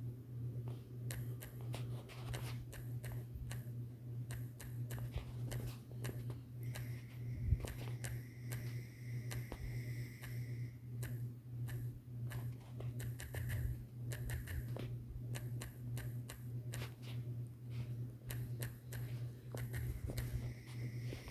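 Quick, irregular taps of typing on a phone's on-screen keyboard, over a steady low hum that pulses about twice a second. A faint high whine comes in twice.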